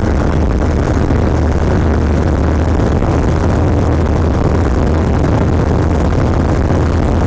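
Motorcycle engine running steadily at cruising speed, around 100 km/h, a constant low drone mixed with the rush of wind and road noise.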